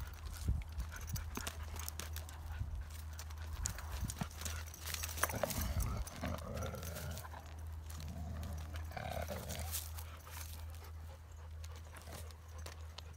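Several Kangal dogs scuffling and jostling on a gravel track, with paws crunching and scuffing over stones. A couple of short, low growls come in the middle of the stretch.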